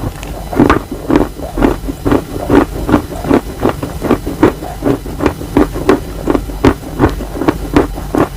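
Close-up chewing of wet chalk, crunching in a steady rhythm of about three bites a second.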